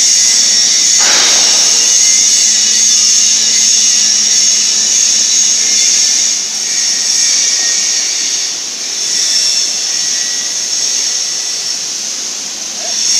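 Loud, steady, high-pitched hiss from a portable CNC plasma cutting machine's torch, with a short rushing burst about a second in. The hiss dips slightly a few times in the second half.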